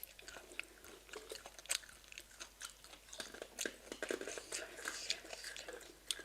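Close-up chewing and biting on spicy marinated chicken feet: irregular short crunchy clicks, a few each second.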